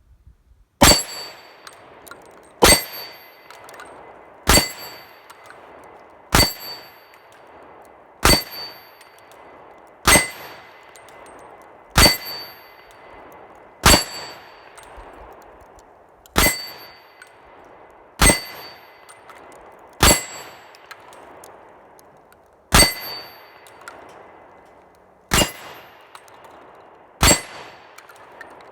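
Glock 29 pistol fired slowly, fourteen shots at about one every two seconds, each followed by a short metallic clang and ring.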